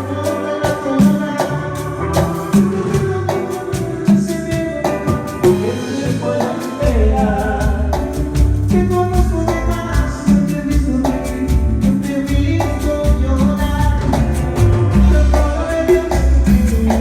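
Latin dance music with singing and a keyboard melody over a steady beat, played loud through a sonido's speaker system at a sound check. A heavy bass line comes in about seven seconds in.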